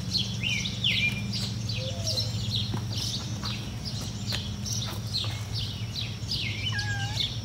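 Small songbirds chirping, many short downward-sliding notes in quick succession, over a steady low hum.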